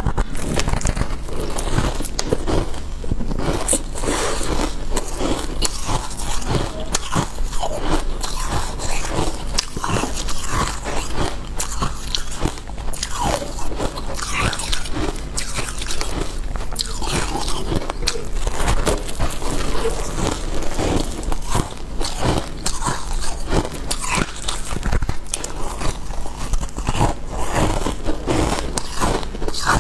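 Close-up crunching and chewing of freezer frost, a dense, irregular run of crisp bites and crackles that does not let up.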